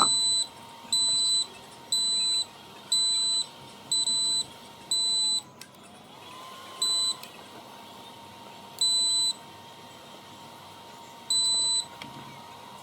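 UPS buzzer beeping: short high-pitched beeps of about half a second each, about once a second for five seconds, then three more at longer, uneven gaps. A faint steady whine runs underneath.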